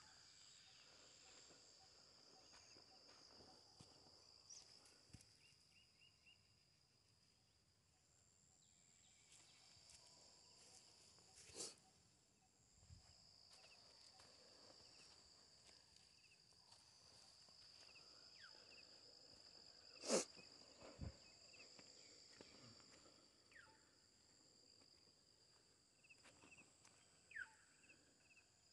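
Faint, steady high-pitched trilling of insects in the field, at two pitches. Sharp knocks cut through it about twelve seconds in and, loudest, about twenty seconds in.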